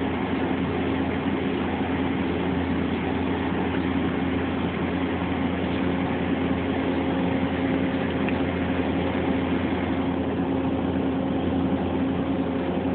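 Steady hum of running machine-shop machinery, a constant low tone over an even mechanical hiss, with no change in pitch or level.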